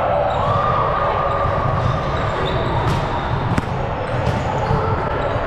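Volleyball game in a gym hall: a steady din of play, with three sharp slaps of the ball, one after another, about halfway through.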